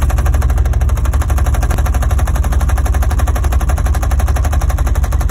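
A car running with a loud, fast, even rattling clatter and a heavy low rumble, heard inside the cabin by the manual gear shifter. It is a mechanical fault noise from the engine or drivetrain.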